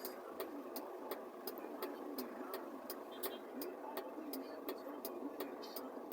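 Quiet background noise with a steady run of light, sharp clicks, a few a second.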